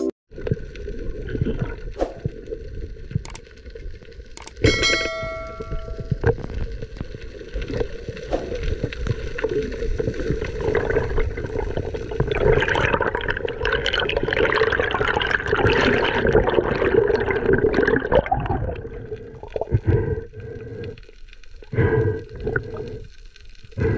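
Muffled underwater sound from a camera in a waterproof housing on a night spearfishing dive: water movement and gurgling over a steady low hum, with a short ringing tone about five seconds in and a louder rush of water noise for several seconds from about halfway through.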